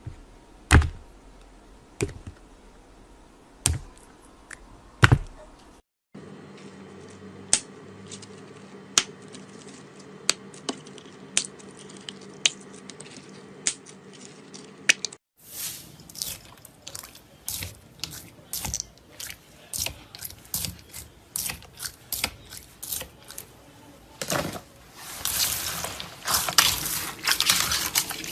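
Slime being squeezed and poked: wet pops and clicks, at first spaced out, then quicker and quicker, turning into dense crackling near the end.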